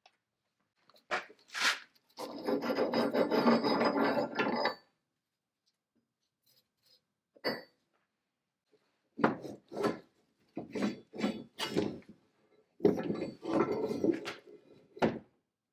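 Rusty steel chain of a large chain pipe wrench being worked off its toothed jaws and dragged on a wooden workbench. A couple of clicks come first, then a rough scrape lasting about two and a half seconds, a single knock, and near the end a run of knocks and more scraping.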